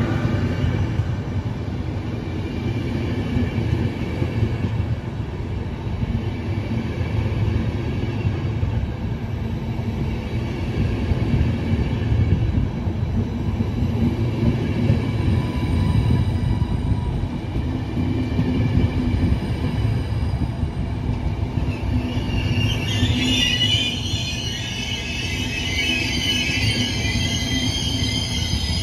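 A train running through a railway station with a steady, loud rumble of wheels on track. About three-quarters of the way through, a high metallic wheel squeal sets in and continues to the end.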